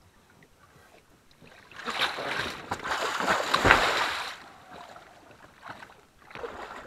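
Water splashing and sloshing as an inflatable boat is flipped over and pushed through shallow water. The splashing starts about two seconds in, is loudest for a couple of seconds, then dies down.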